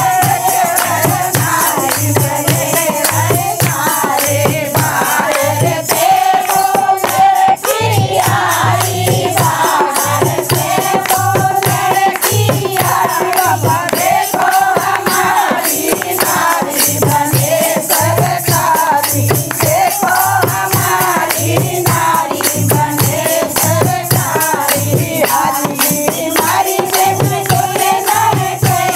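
Women singing a Hindi devotional bhajan to Shiva in chorus, with brass hand cymbals clashing and hands clapping in a steady, even rhythm.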